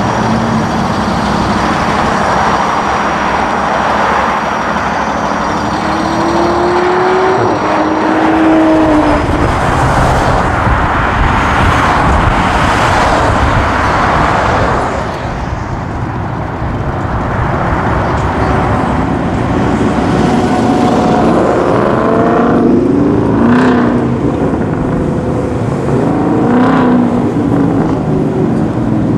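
Performance cars accelerating hard away one after another, engines and exhausts revving up with rising pitch through gear changes, over road and traffic noise. Two main pulls are heard, one about a quarter of the way in and a series of rising revs in the last third.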